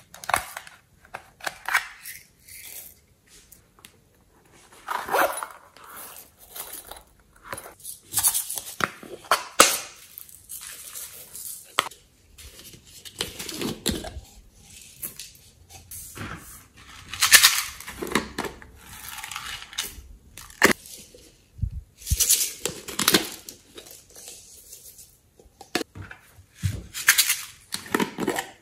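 Hands handling small plastic containers: prying and twisting plastic lids off and squeezing soft plastic bottles. It comes as irregular crinkling and scraping, with a few sharp clicks.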